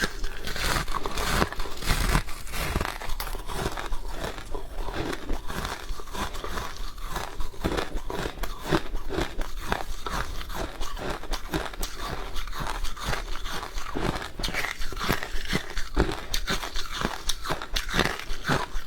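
Close-miked crunching and chewing of freezer frost, with dense, irregular crisp crunches throughout.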